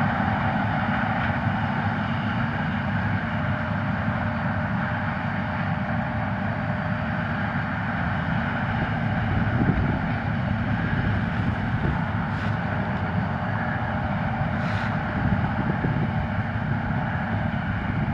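A John Deere S690 combine harvesting corn and a John Deere 9410R tractor pulling a grain cart alongside it, their engines and machinery running steadily together while the combine unloads on the go.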